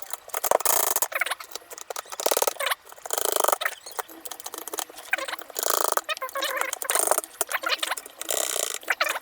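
Plastic clicks and scraping from handling a mechanical keyboard: short sharp clicks with several half-second bursts of high scraping or rubbing.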